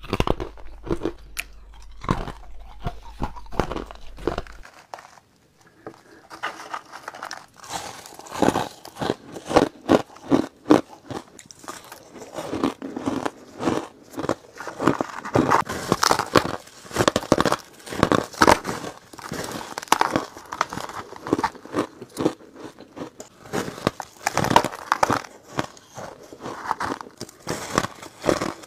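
Close-miked biting and chewing of refrozen purple crushed ice, many sharp crunches in quick succession. The crunches are sparse at first, then, after a brief lull about five seconds in, become dense and rapid.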